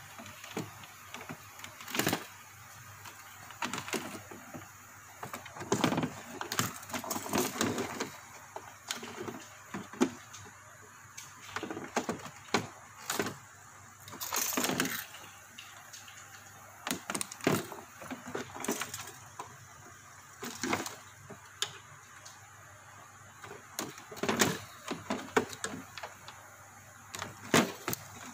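Irregular sharp plastic clicks, knocks and rustling as hands handle wires and fit connectors on an air cooler's control circuit board and plastic housing.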